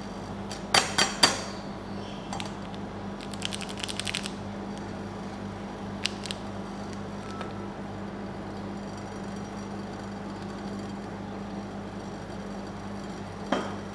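A can and a wrapped chocolate bar knocked and tapped against a steel cold plate as they are picked up and set down: three sharp knocks about a second in, a lone tap, and another knock near the end. A short crinkling of the bar's plastic wrapper comes a few seconds in, over a steady low hum.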